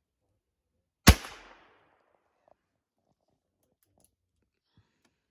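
A single shot from a single-action revolver about a second in, with a short echoing tail; a couple of faint clicks follow later.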